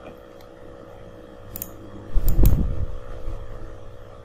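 Steady hum of a mechanical fan with a few faint clicks, and a dull low thump about two seconds in.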